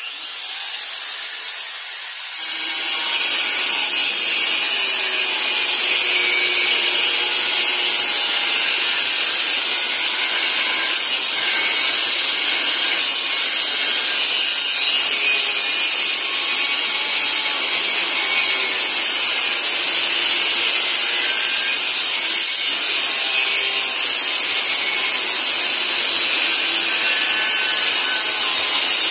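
Electric angle grinder with a cutting disc spinning up over the first couple of seconds, then running steadily as it cuts a floor tile, a loud high-pitched grinding whine.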